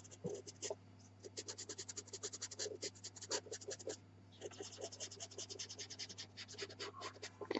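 Pastel pencil scratching over black velour pastel paper in rapid short shading strokes, several a second, faint, with two brief pauses.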